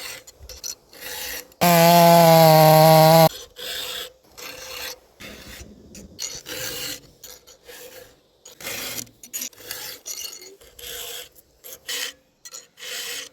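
Chainsaw file rasping across the teeth of a chainsaw chain in short strokes, about two a second. Near the start a much louder steady buzzing tone cuts in for about a second and a half, then stops abruptly.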